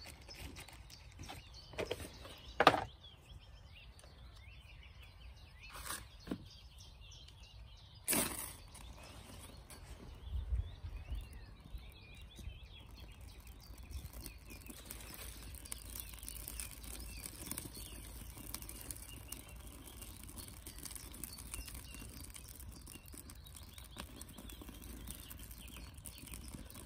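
Sparks struck into birch bark and pine-resin tinder: a few sharp strikes over the first eight seconds, then the faint, dense crackling of the resin-soaked birch bark catching and burning, growing toward the end as twigs are laid on.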